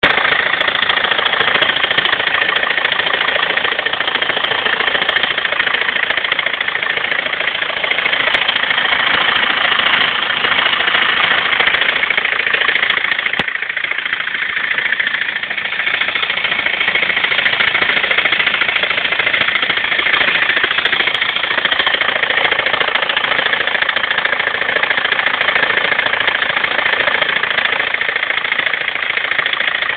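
BMW 320d's four-cylinder diesel engine running steadily with a weird noise, a dense continuous rattle, that the owner takes for a sign of an engine problem he can't identify.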